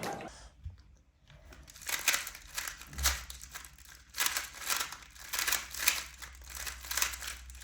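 Plastic Rubik's Cube being turned quickly by hand: a run of quick clicks and rattles from the layers snapping round, starting about a second and a half in.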